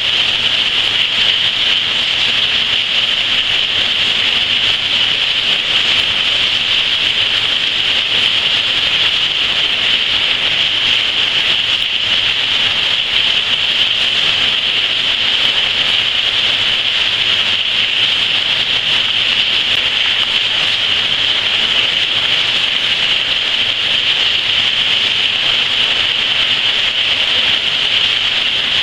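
Steady rain falling, a continuous even hiss with no letup.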